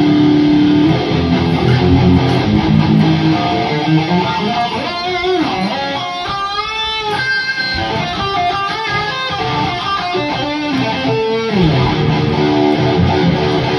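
Electric guitar played through studio monitor speakers: held notes, with bent notes and vibrato about halfway through and a falling slide near the end.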